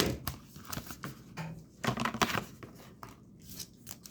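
Light, scattered crinkles and small clicks of a gold foil chocolate-bar wrapper being handled.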